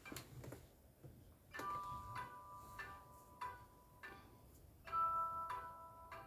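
One of the S-TELL C552 phone's built-in tones playing from its speaker: a slow tune of bell-like chime notes, each opening with a light tick, the loudest note about five seconds in.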